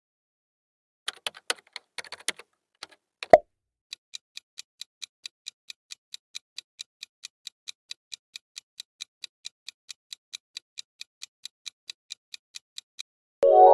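Countdown timer sound effect: a few quick clicks and a sharp pop about three seconds in, then fast, even clock ticking for about nine seconds. A musical chime comes in at the very end.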